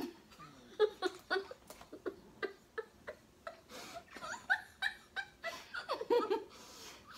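Two girls laughing in short, repeated bursts with their mouths stuffed full of marshmallows.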